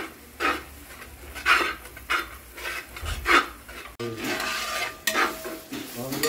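A spoon scraping and stirring in a cooking pan in repeated strokes about once a second, with one longer scrape about four seconds in, as some of the tomato-masala gravy is scooped out to be ground.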